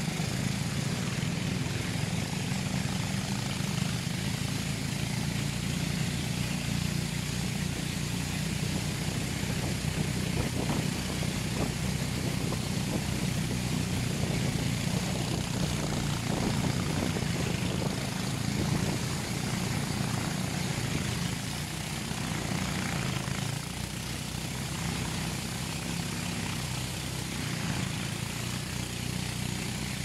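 Boat engine running steadily at speed, a constant low hum, mixed with water rushing past the hull through river rapids.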